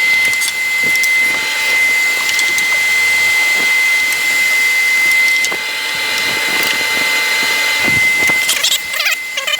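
Table saw with a dado blade stack running, cutting wood, with a steady high whine over the noise of the cut. The level drops a little about halfway through and becomes uneven near the end.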